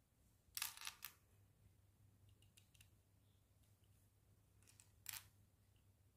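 Micro plastic building bricks clicking as they are pressed onto a model by hand, in two short clusters of clicks, one just after the start and another about five seconds in.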